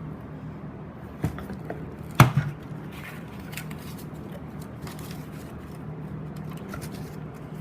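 Handling noises: scattered clicks and knocks, with one sharp knock about two seconds in the loudest, over a low steady hum.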